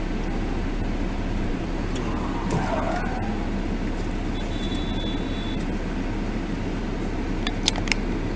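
Steady in-car drone of engine and road noise picked up by a dashcam while driving, with no crash impact. A thin high electronic beep lasts about a second in the middle, and a few sharp clicks come near the end.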